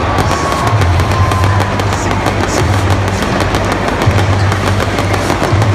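Arena pyrotechnics firing: a dense, continuous crackle and popping of sparks, heard over loud music with a deep bass note held in stretches.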